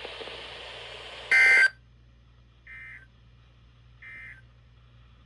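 Emergency Alert System end-of-message signal: three short bursts of SAME data warble about 1.3 s apart, the first loud and the other two fainter, marking the close of the warning broadcast. Before the first burst there is a steady radio hiss, which drops away with it.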